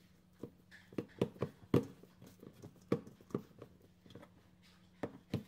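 Hands handling raw ground beef, pressing it into balls and setting them down in a stainless steel bowl: about ten soft, irregular slaps and taps.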